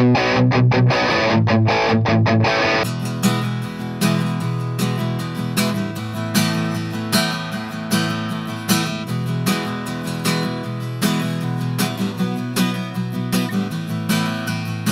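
Electric guitar played through a guitar amp for the first three seconds or so. It then gives way to an acoustic guitar strumming chords, with a steady run of strokes.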